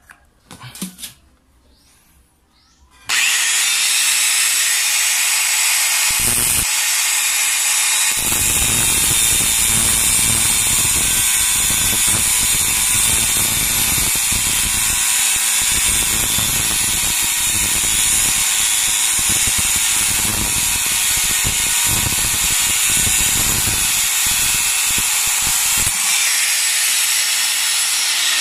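Electric angle grinder, its repaired armature back in service, switched on about three seconds in and running steadily. From about eight seconds in, its cutting disc bites into steel rebar, adding a rough grinding sound, until it cuts through near the end and the grinder runs free again.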